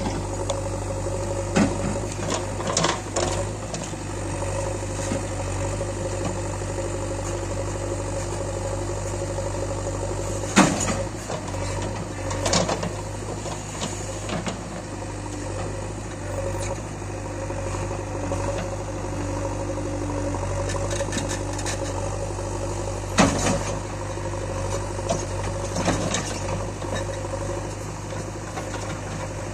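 JCB 3DX backhoe loader's diesel engine running steadily while digging, with a few sharp knocks and clanks scattered through. The loudest knocks come a little before the middle and about three quarters of the way through.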